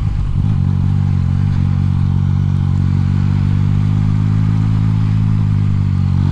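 Yamaha MT-09's inline-three engine running at a steady, low engine speed, with a brief wobble in its note about half a second in.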